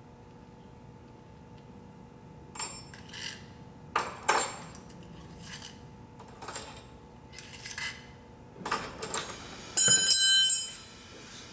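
Steel parts of a 1938 Harley-Davidson Knucklehead seat post clinking and knocking together as the assembly is taken apart by hand. The clinks come in a scattered run starting about two and a half seconds in, with a louder ringing metal clatter near the end.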